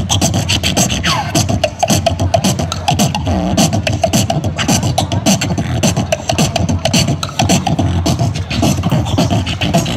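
Beatboxing into a handheld microphone, played through a small portable amplifier speaker: a fast, steady stream of mouth-made kick, snare and hi-hat beats, with a short falling sweep about a second in.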